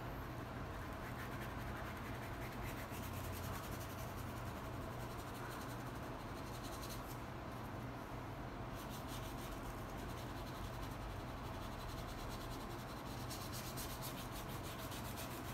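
A wide paintbrush spreading black acrylic paint over the painting surface in horizontal strokes: a soft, steady scratchy rubbing.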